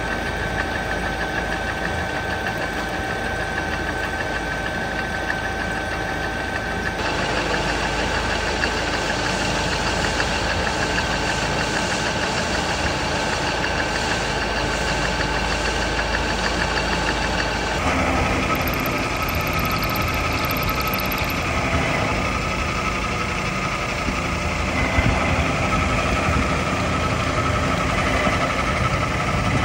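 Metalworking machine tool running steadily with a constant hum and whine. Its tone changes abruptly twice, about a quarter of the way through and a little past halfway.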